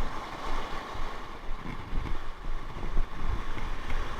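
Wind buffeting the microphone in gusts, over the steady wash of a rough sea.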